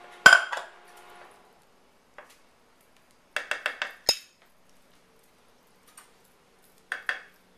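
Kitchen utensils clinking and tapping against a ceramic casserole dish as béchamel sauce is spread and scraped off a spatula. There is one sharp clink just after the start, the loudest, then a quick run of about five clinks three and a half seconds in and two more near the end.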